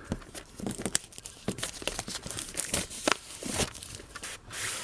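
Cardboard box and packaging being opened by hand: irregular rustling, crinkling and tearing with small knocks, and a longer scraping hiss near the end.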